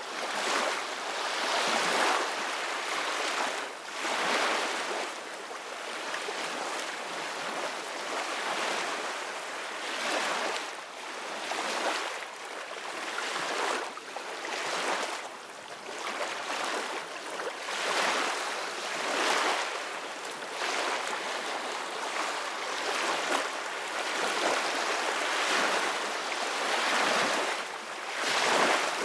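Ocean surf washing in: a steady hiss of breaking waves that swells and eases every couple of seconds, with little deep boom.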